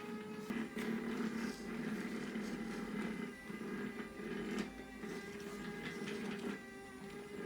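Small battery-powered Daiso robot vacuum cleaner running, its motor whirring steadily, with scattered clicks and knocks.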